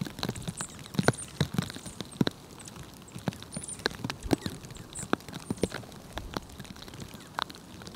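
Downy woodpecker pecking, a string of sharp, irregular taps at uneven loudness, roughly one to three a second.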